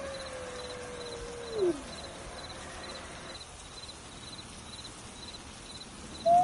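Grey wolf howl holding a slowly falling note, then sliding steeply down in pitch and ending about two seconds in. After it, a faint high chirp repeats about twice a second, and a new howl begins just at the end.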